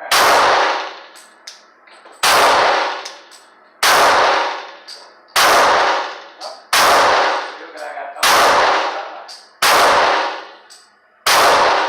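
Glock pistol in .40 S&W firing eight single shots, about one every second and a half, each shot followed by a ringing echo that fades out.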